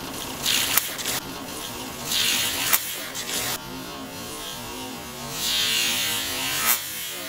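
Water from a garden hose hissing and spraying at the neck of a water balloon being filled to its limit. It comes in spells, with a few sharp clicks, the sharpest near the end.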